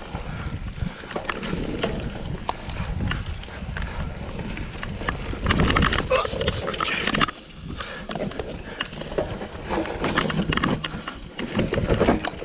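Mountain bike ridden fast down a dirt trail covered in dry leaves: tyres crunching through leaves and dirt, with the bike clattering and rattling over bumps in quick, irregular knocks and a steady low rumble.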